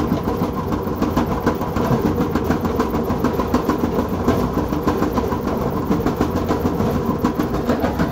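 Gas clothes dryer running with its lower front panel off: the drum turning on its belt, motor and idler pulley, with a loud, fast, steady clatter.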